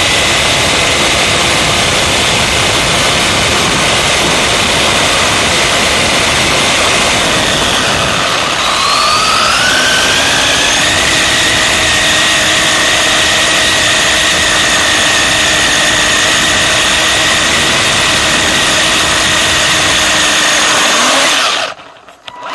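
Steady whine of a WLtoys 144001 electric RC buggy's motor and gears, heard from its onboard camera, with tyre and air noise. The whine rises in pitch about nine seconds in, and the sound drops away sharply near the end.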